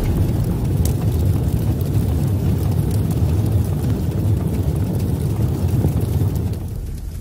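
A low, steady rumble that eases off slightly near the end.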